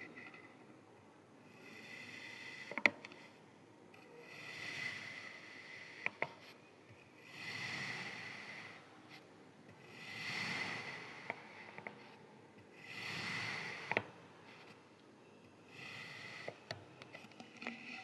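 Kinetic sand being sliced, about six slow cuts, each a soft gritty hiss lasting one to two seconds, with a few sharp clicks in between.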